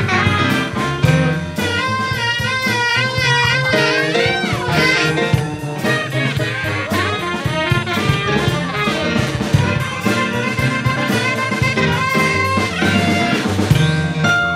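Live jazz band playing, led by tenor and alto saxophones, with drums keeping time. About two seconds in, a held, wavering note sounds over the band.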